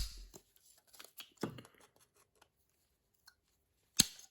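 Pliers cutting through the plastic sides of a small fan's frame: a sharp snap at the start and another about four seconds in, with small crackles of plastic in between.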